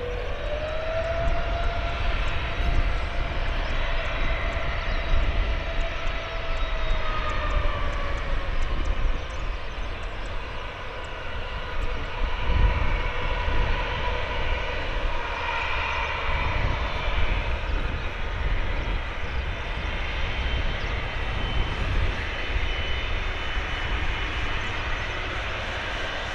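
Airbus A330-200's Rolls-Royce Trent 772B turbofan engines running at taxi power as the airliner taxis and turns to line up, a steady jet whine over a low rumble. A mid-pitched engine tone rises in the first second and then slowly falls away over the next several seconds.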